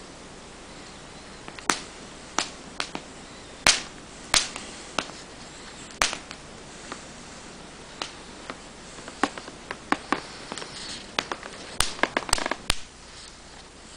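Open wood fire crackling: irregular sharp pops and snaps over a steady hiss, coming thicker and faster near the end.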